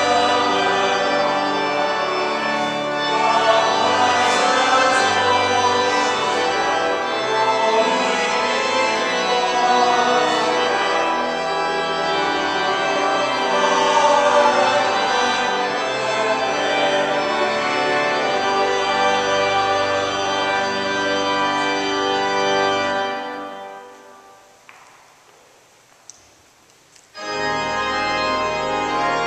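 Church organ playing sustained full chords. The music dies away about 24 seconds in, leaving a few seconds of quiet, then the organ starts again suddenly near the end.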